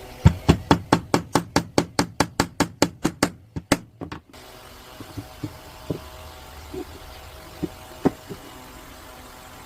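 Rapid, even knocking, about five sharp strikes a second for some four seconds, then a few scattered lighter knocks.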